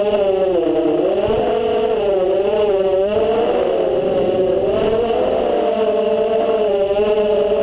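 Brushless motors and propellers of an FPV quadcopter whining in flight, the pitch wavering up and down with throttle changes.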